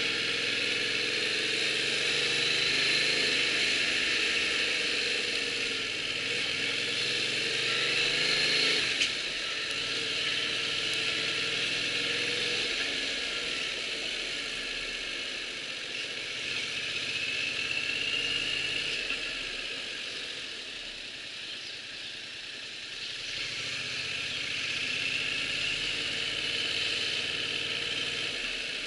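Yamaha MT-07's parallel-twin engine pulling the bike along a street, rising in pitch for the first nine seconds, then dropping off sharply and swelling again several times as the throttle is opened and closed, with a steady hiss of wind on the microphone.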